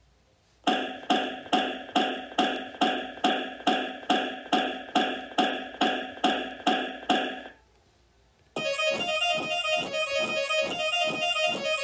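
Electronic keyboard music: one pitched note repeated about two and a half times a second, each note decaying quickly. It stops, and after a short pause a different, fuller pulsing synth loop with many tones starts.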